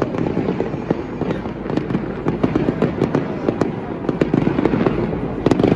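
Fireworks display: a dense, continuous run of crackling pops and bangs, with a louder cluster of bangs near the end.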